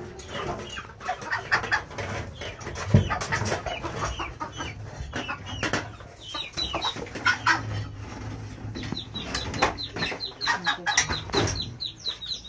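Chickens clucking and calling, with runs of quick high chirps and a single knock about three seconds in.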